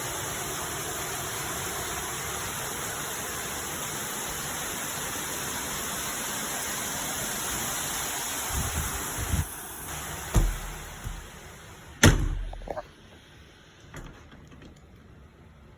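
Heavy summer storm rain falls steadily. Then come a few knocks and a loud bang about twelve seconds in, as a door is shut, and after it the rain is heard only faintly.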